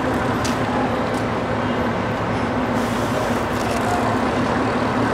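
Large coach bus's engine running with a steady low hum, over general street traffic noise.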